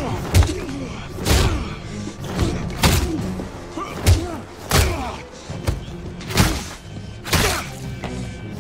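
Film fight sound effects: a rapid series of heavy punches and body impacts, about ten hits at roughly one a second, over a dramatic music score.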